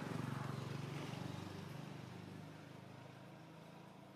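Engine of a passing motor vehicle, a low drone loudest about the first second and slowly fading away.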